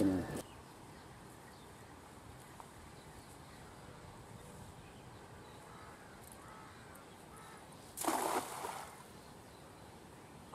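A thrown cast net hitting the pond surface with one short splash about eight seconds in, against a faint, steady outdoor background.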